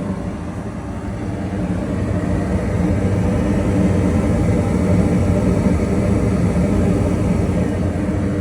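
Goodman gas furnace running steadily with its burners lit and blower going, a low, even hum that grows a little louder over the first few seconds. It is staying on with its new flame sensor, working as it should.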